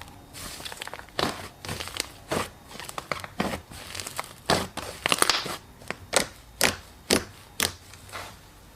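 Slime being squished and poked by hand, giving crackly pops and clicks. Near the end the pops come about twice a second.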